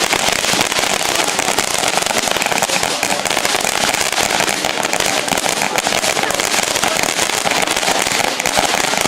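Fireworks crackling, a dense continuous run of rapid small pops that keeps going steadily.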